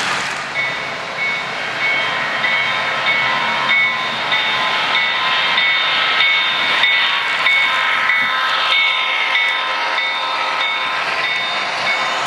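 Bell sound played by an HO-scale model diesel locomotive's sound decoder, ringing over and over about twice a second. Under it runs the steady rolling noise of the model train on its track.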